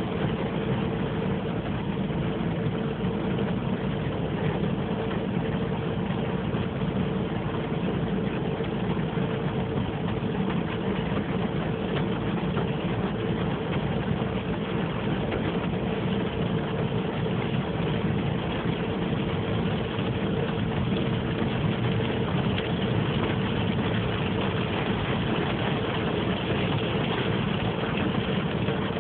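Steady noise inside a car's cabin: the engine idling in traffic with rain falling on the car, under a steady hum.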